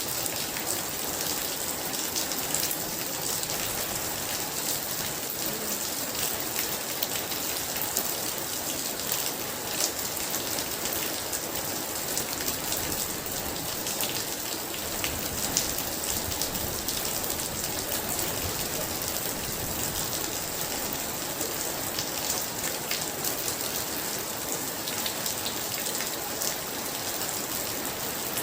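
Heavy rain falling steadily, a dense hiss with many sharp drop impacts pattering on a hard surface.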